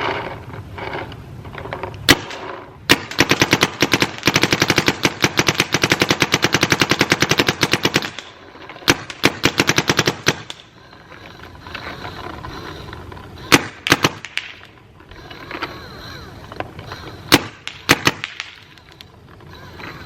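Proto PM6 electropneumatic paintball marker firing: two single shots, then a rapid string of shots lasting about four seconds, then short groups and scattered shots in pairs. The regulators are freshly rebuilt and it cycles smoothly.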